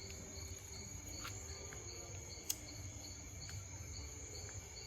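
Night insects chirping steadily in high tones, one of them pulsing about three times a second, over a low rumble. A single sharp click sounds about halfway through.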